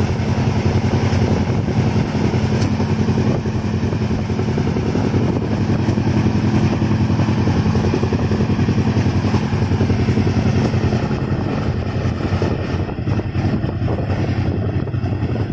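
Express passenger train running at speed, heard from inside the coach: a loud, steady rumble of wheels on the rails, easing slightly near the end.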